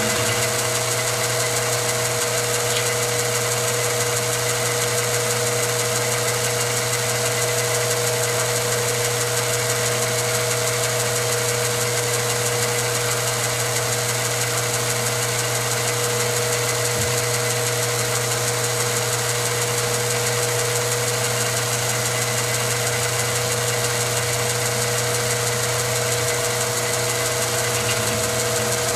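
Milling machine running steadily, its end mill cutting a slot through the wall of a metal shotgun muzzle-brake body: a constant machine hum with a held whine.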